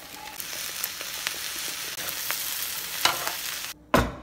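Fried rice sizzling in a hot frying pan as it is stirred, with scattered clicks of the utensil against the pan. The sizzle cuts off suddenly near the end, and a single short thump follows.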